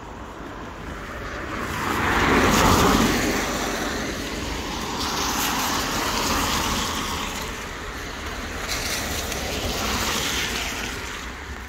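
Cars driving past close by on a wet road, one after another, with tyre hiss on the wet tarmac. The first pass, about two to three seconds in, is the loudest, and two more follow a few seconds apart.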